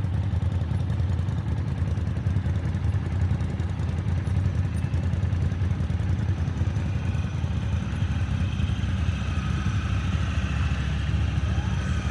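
Side-by-side UTV engine running with a steady low rumble.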